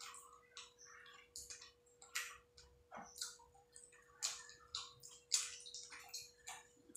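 Fingers working rice and curry on a plate: a string of small, irregular wet clicks and squishes, several a second, over a faint steady hum.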